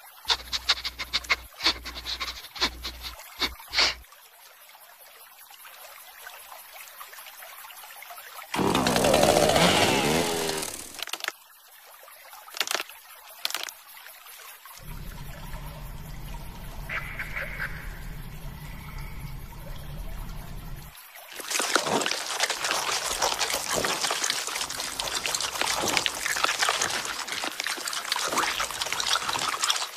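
Cartoon sound effects for animated insects: a run of sharp clicks, then a loud warbling sound that bends in pitch, a low hum, and about eight seconds of dense crackling noise near the end.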